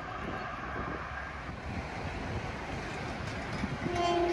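Wind buffeting the microphone over a steady rumble that slowly grows louder as a Long Island Rail Road train approaches. Near the end a short steady horn note begins.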